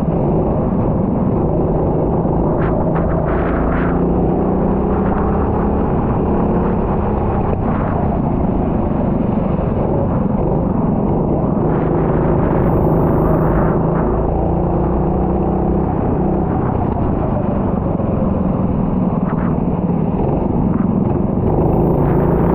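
Racing kart engine running hard through a practice session, its pitch rising and falling with the throttle, with a few brief clacks.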